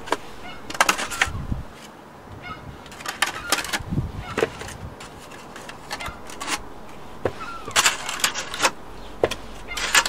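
A cut-open plastic milk bottle and fat balls being handled: irregular plastic clicks, knocks and crackles as the balls are pushed into the bottle, with a few short squeaks.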